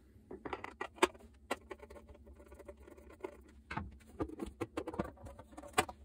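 Torx security screwdriver working the screws out of a plastic espresso-machine base, then the base being lifted off: a run of small, irregular clicks and scrapes, with a sharper click near the end.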